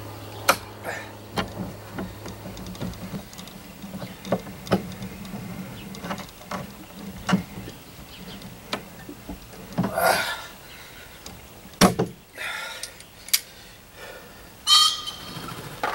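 Irregular knocks, clicks and scrapes of wood and metal as the new transom board and its clamps are handled and set on the boat. Two longer scraping clatters come about ten seconds in and near the end, with a sharp knock between them.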